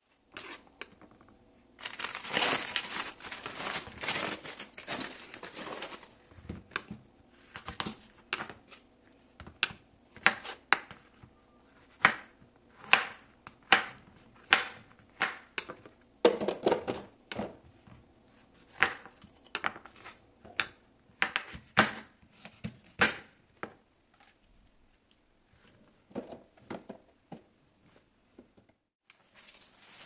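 Paper and plastic wrapping crinkling and tearing as vegetables are unwrapped, then a kitchen knife chopping a ridge gourd on a wooden cutting board, about one sharp chop a second. Softer rustling of leafy greens comes near the end.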